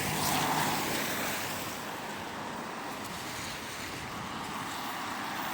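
Steady rushing hiss of road traffic on wet roads, with a vehicle passing in the first second.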